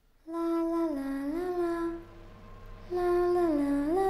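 A person humming a short tune with closed lips, twice: a held note that slides down a step and back up to a higher held note.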